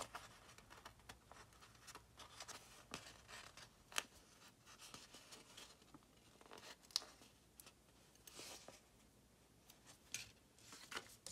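Faint rustling of a glossy sticker sheet as small dot stickers are peeled off with metal tweezers and pressed onto a paper planner page, with soft scattered clicks and two brief sharp ticks.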